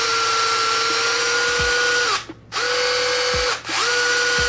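Combat robot's drive motors spinning the wheels off the ground on a test stand, a steady electric whine. It cuts out twice and spins back up each time as the transmitter stick is released and pushed again. The motors are being run so that the two sides' speeds can be matched by ear.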